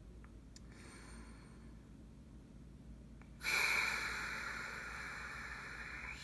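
A man's long, exasperated sigh. A fainter breath comes about a second in; about three and a half seconds in a loud, breathy exhale starts suddenly and trails off over nearly three seconds.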